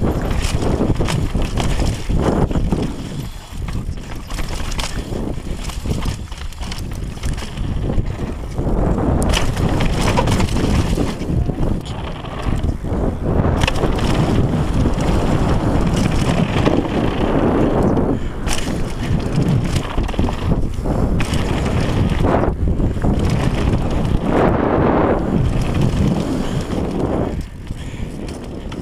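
Wind rushing over an action camera's microphone on a downhill mountain bike descending a dirt trail, with tyre noise and frequent knocks and rattles from the bike over the rough ground.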